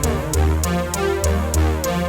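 Electronic background music: synthesizer chords and a deep bass over a steady beat of sharp ticks, about four a second.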